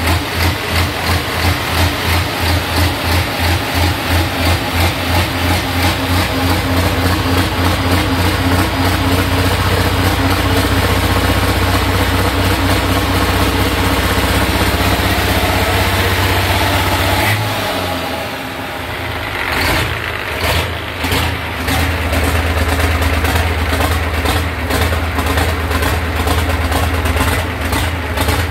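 Six-cylinder diesel engine with an inline mechanical injection pump idling as it warms up after an injection pump repair. The idle pulses unevenly at first, then settles into a steady run; about two-thirds of the way through the sound briefly drops and changes before the steady idle returns.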